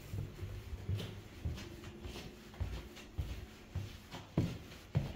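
Footsteps and shuffling on a hard tiled floor, with light irregular thuds about every half second and a few sharper knocks near the end.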